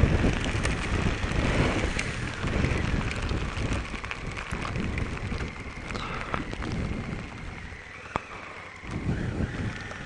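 Wind rushing over a helmet-mounted camera microphone on a motorcycle riding through heavy rain, with raindrops ticking against it. The rush is loudest at first and eases off over the second half.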